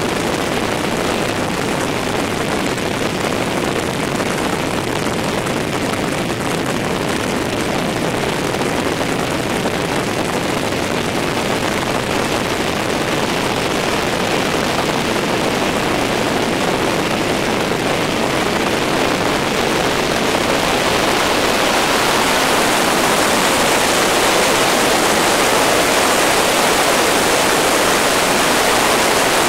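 Helicopter in flight heard from inside the cabin: a steady rushing noise with no clear pitch, growing louder and hissier about two-thirds of the way through.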